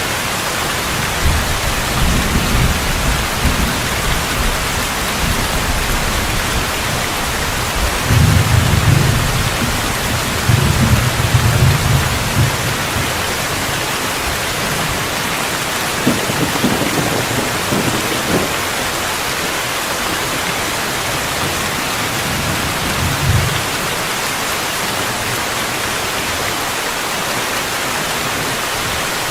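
Steady rainfall with several low rumbles of thunder rolling over it, the longest and loudest about a third of the way in.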